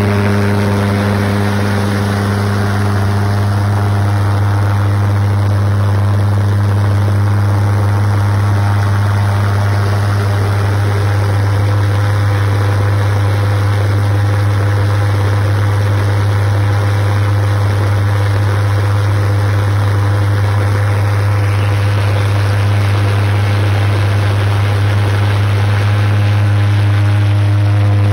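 Triple valveless pulsejet engine of about 150 pounds thrust running flat out on liquid propane: a loud, steady, deep drone held at one unchanging pitch, with no let-up.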